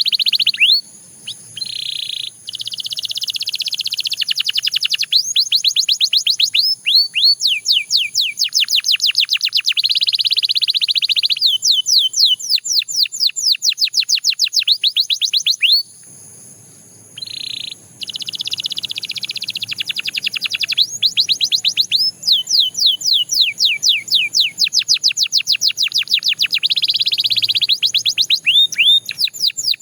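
Belgian canary singing: fast trills of rapidly repeated, downward-sliding whistled notes alternating with dense buzzing rolls. The song breaks off briefly twice, about a second in and about halfway through.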